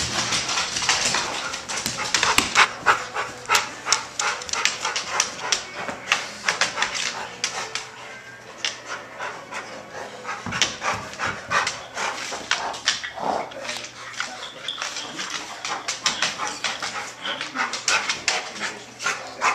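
Two dogs panting and scuffling in rough play, with a rapid, irregular patter of clicks and scrapes from claws on a hardwood floor.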